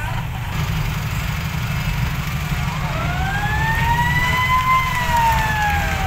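Heavy diesel ten-wheel truck rumbling as it pulls away, with a siren-like whine that rises for about two seconds from about three seconds in, then slowly falls.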